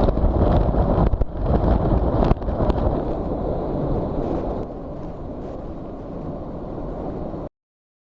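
Strong cyclone winds gusting and buffeting the microphone, loudest in the first half and easing somewhat about five seconds in. The sound cuts off abruptly about seven and a half seconds in.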